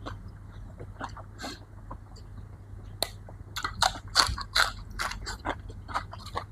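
Close-up chewing and crunching of food in the mouth, a run of sharp crunches, busiest a little past the middle.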